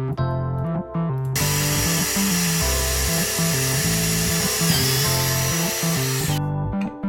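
A power tool runs loudly for about five seconds over background electric-piano music, starting about a second and a half in and stopping abruptly near the end.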